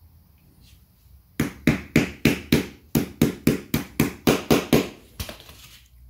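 Hammer tapping lightly on a 3D-printed puzzle-box core that rests on a wooden dowel: about fifteen sharp taps at roughly four a second, starting about a second and a half in, with a last tap just after five seconds. The taps are meant to break the printed-in-place gears free from the core's ring gears.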